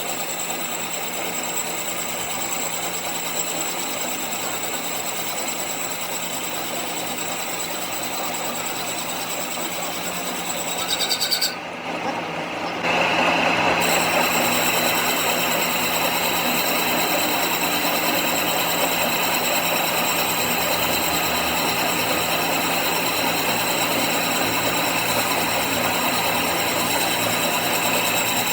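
A machine tool running steadily with a constant whirring hum and a high whine. It cuts off briefly about twelve seconds in and resumes louder.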